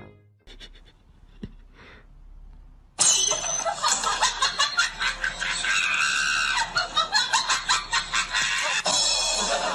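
A person laughing hard in rapid, high-pitched, shrieking bursts, starting suddenly about three seconds in.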